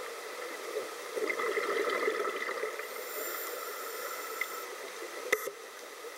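Scuba breathing heard underwater: the gurgle of exhaled bubbles from a regulator, then a high regulator hiss about three seconds in, and a single sharp click near the end.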